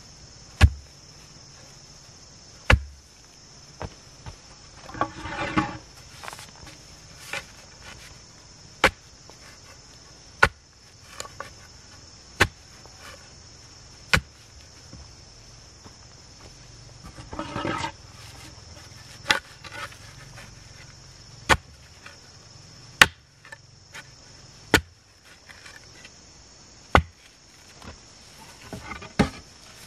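A blade chopping into wood in single sharp strikes, roughly one every one to two seconds, with two brief stretches of crackling and rustling between strikes. A steady high insect buzz runs behind.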